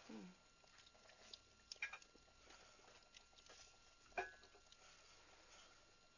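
Near silence: quiet room tone with a few faint clicks, the loudest about four seconds in.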